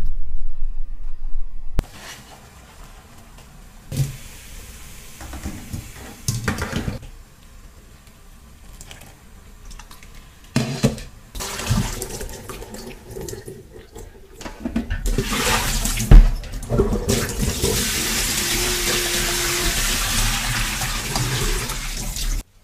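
Cold tap water running into a stainless steel bowl in a steel sink while hands swish and rub freshly boiled shiso buckwheat noodles, with a few knocks of metal bowl and colander. This is the rinse that washes off the starch and firms the noodles. The tap runs steadily and louder near the end, and a low rumble fills the first two seconds before cutting off sharply.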